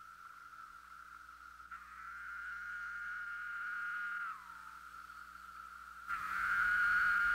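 Male cicada's shrill buzzing song: a steady high drone that swells, slides down in pitch and fades about four seconds in, then comes back abruptly louder about six seconds in.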